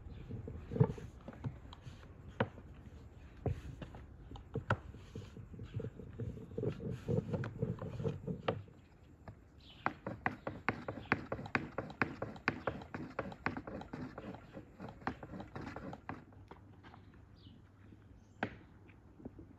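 Long, thin wooden rolling pin rolling dough into thin sheets on a wooden board, giving light knocks and clatters as it is pushed back and forth. The knocks come thick and fast for several seconds in the second half.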